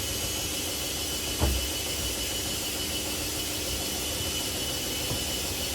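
Washing machines running, a steady whirring hiss with a thin high whine, and a single dull thump about a second and a half in.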